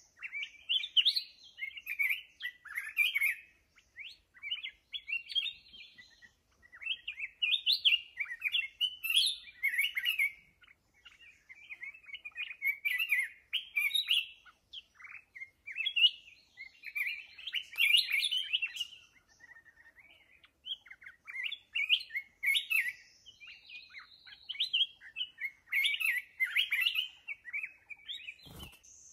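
Black-crested bulbul singing: bursts of quick, warbling chirps repeated every second or two, with a single knock near the end.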